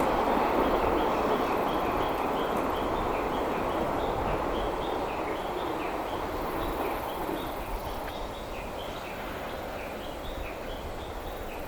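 Freight train of flat wagons rolling away, its wheel-and-rail rumble steadily fading. Short high chirps repeat several times a second throughout.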